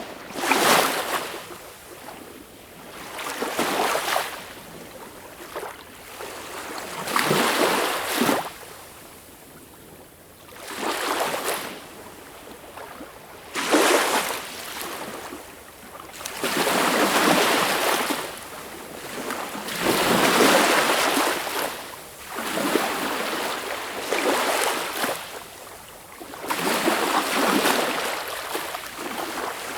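Sea waves breaking and washing in, one surge every three or four seconds.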